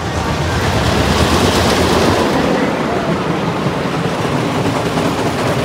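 Roller coaster train running along its track: a loud, steady rumble of wheels with rushing noise over it.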